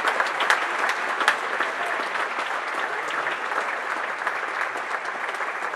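Audience applauding: many hands clapping steadily, a dense patter of claps.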